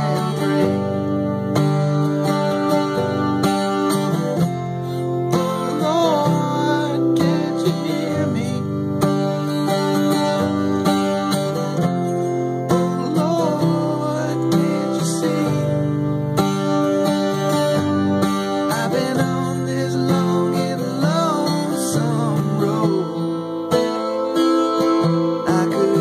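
A man singing to his own acoustic guitar, with sustained sung notes held with vibrato over the guitar accompaniment.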